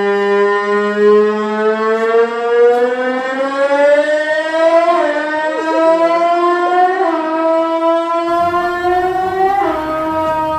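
Racing motorcycle engine sound in the MotoGP style, held at high revs and climbing steadily in pitch, with short drops at gear changes about halfway through, again about two seconds later, and near the end.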